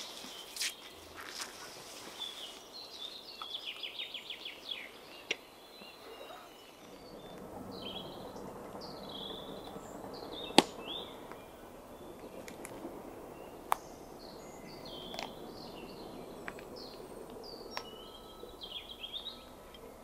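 Small songbirds singing in a spruce forest: a rapid trill of repeated notes near the start, then scattered short chirping phrases. A few sharp clicks or snaps stand out, the loudest about halfway through, over a low steady rumble of distant road-construction noise that thickens about a third of the way in.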